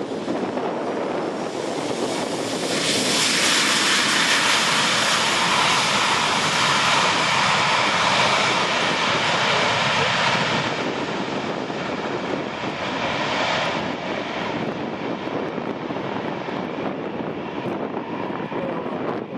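Boeing 737-400 freighter's CFM56 turbofan engines on the landing rollout. About three seconds in, the jet noise rises sharply to a loud rushing sound and holds for around eight seconds, the engines spooled up for reverse thrust. It drops off, swells briefly again, then settles to a steady, more distant engine noise as the jet slows.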